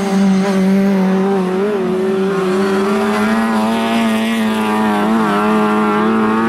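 Lada 2107 rally car's four-cylinder engine held at high, nearly steady revs while the car slides through a corner, its note wavering slightly.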